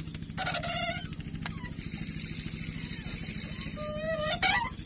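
Small boat engine running steadily with a fast, even low pulse. A higher hiss rises over it in the middle, and short pitched calls come about half a second in and again, loudest, near the end.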